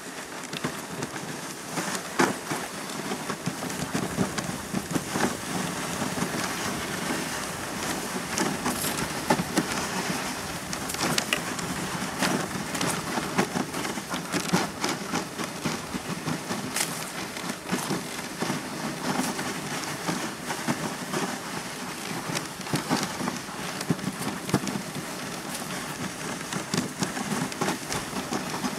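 Dog sled runners sliding over snow, a steady crackling hiss full of small crunches, as a two-dog team pulls the sled along.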